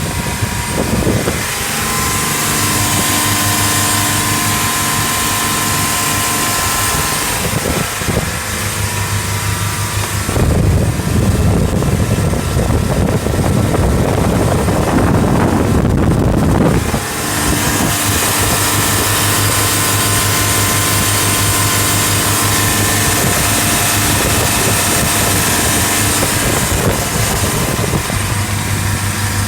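A boat's 4.2-litre diesel engine running steadily under way on a sea trial after an injection pump repair. For several seconds in the middle, a louder rushing noise of wind and water covers the engine's note.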